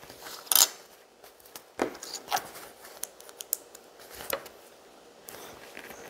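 LEGO plastic pieces being handled and pressed together: scattered small clicks and short scrapes.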